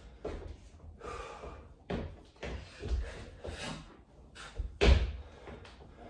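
Heavy thuds of a body landing on the floor during burpee reps, the loudest about five seconds in, with hard, breathy exhales between them.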